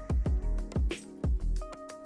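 Background R&B music: an electronic beat with a deep kick drum and crisp hi-hats under held synth tones, no vocals.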